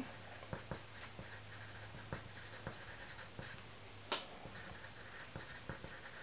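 Wooden pencil writing on paper in capital letters: a run of faint, short scratching strokes, with one sharper tap about four seconds in.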